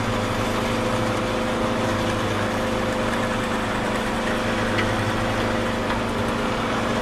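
Mortise machine's motor running steadily while it cuts a mortise in wood: an even hum with a few held tones.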